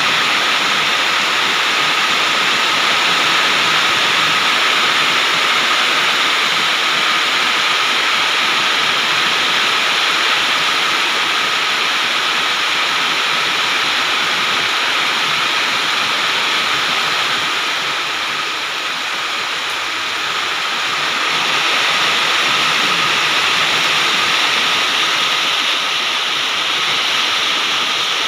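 Heavy rain pouring down in a steady, dense hiss, dipping a little in loudness about two-thirds of the way through.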